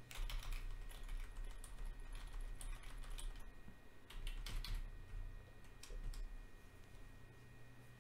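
Computer keyboard keys tapped in quick runs: a flurry of presses over the first three seconds or so, another cluster about four to five seconds in, and a couple more near six seconds. The keys are being pressed to bring up and work a PC's BIOS boot-device menu.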